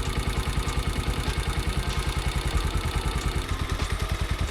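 Bajaj Pulsar 150's single-cylinder four-stroke engine idling steadily with a quick, even beat. Its tappet clearance has just been set, and only the slight mechanical noise typical of this older Pulsar remains in place of the earlier loud tappet chatter.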